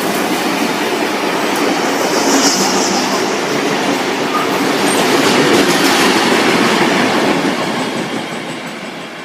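Steam-hauled train passing close by, its wheels running over the rails. The sound swells about halfway through, then fades over the last couple of seconds as the train moves away.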